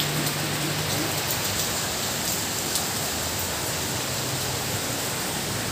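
Steady rain shower falling and splashing on a wet tiled balcony, with a few faint sharp ticks.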